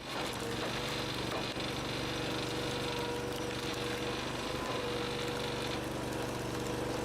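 An engine running steadily, with a steady mechanical hum and whine and no clear strokes or impacts.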